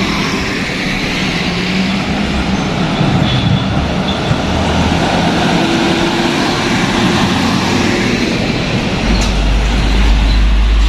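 A motor vehicle running with road noise, with a few steady low engine tones; a strong deep rumble joins about nine seconds in.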